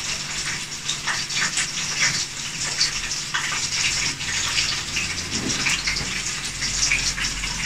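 Food deep-frying in hot oil: a steady sizzle with many small crackles.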